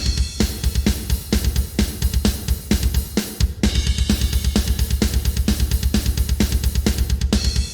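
Sampled acoustic drum kit from the Stigmatized Drummer Kontakt library playing a fast groove: rapid bass drum strokes under regular snare hits and cymbals. It starts suddenly, with a brief break about three and a half seconds in.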